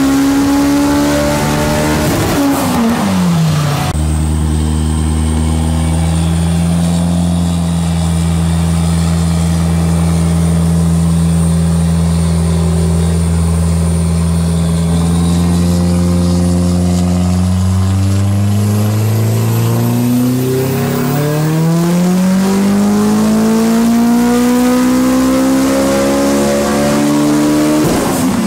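Tuned Mitsubishi Lancer race car's engine on a chassis dyno: it starts at high revs, drops sharply about two seconds in, holds a steady lower speed, then from about halfway climbs steadily through the revs for some ten seconds before falling away sharply at the end.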